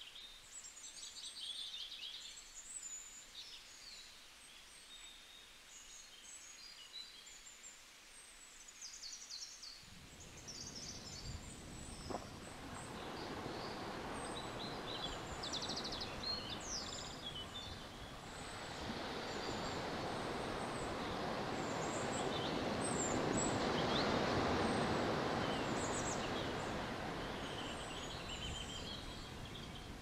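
Small birds chirping throughout over the wash of ocean surf. The surf swells up about a third of the way in, is loudest a little past the middle, and eases off near the end.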